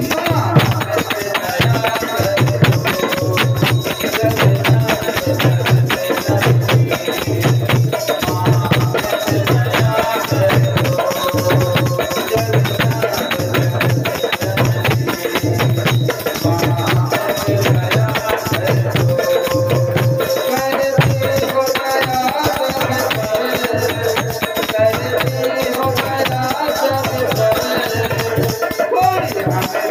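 Devotional kirtan music: a man's voice singing a hymn over a low drum beat about once a second and steady jingling hand percussion.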